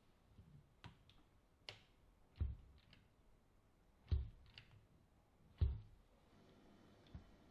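Soft knocks and light clicks as the front suspension of a 3D-printed 1/8-scale RC car chassis is pushed down by hand and let spring back. There are three sharper knocks about a second and a half apart in the middle.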